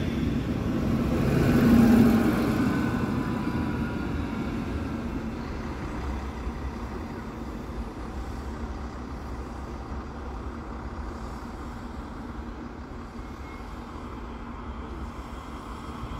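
A Regio-Shuttle RS1 diesel railcar pulls away close by, its engine running loud with a whine that falls in pitch as it moves off over the first few seconds. A quieter, steady low rumble follows.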